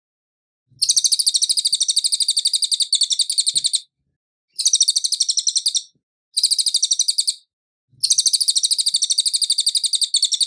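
Cililin singing: long, rapid trains of high, sharp chirps in four bursts, with short pauses between them.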